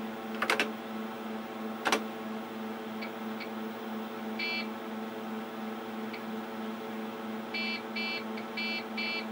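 Steady machine hum with two keyboard clicks in the first two seconds. Then come short buzzer beeps from an HxC floppy emulator stepping through the mounted disk image as the installer reads it: one beep about four and a half seconds in and a run of five near the end.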